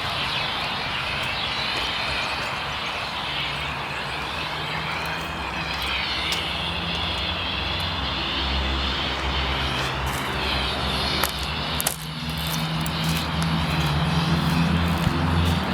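An engine running steadily, its low hum strengthening in the second half, with a few sharp clicks about eleven to twelve seconds in.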